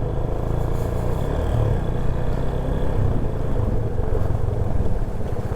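Motorcycle running steadily while being ridden, a continuous low rumble with no changes in pace.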